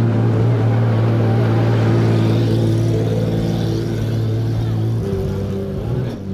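Race car engine running with a steady low drone; its pitch shifts about five seconds in.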